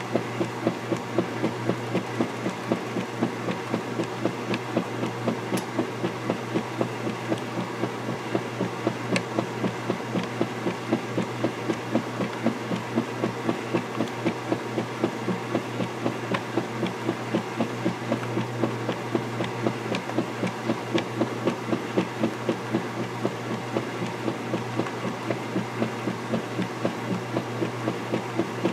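Vintage KitchenAid direct-drive top-loading washer agitating a sudsy load: a steady motor hum under a quick, regular pulse of swishing water and clothes, about two to three beats a second.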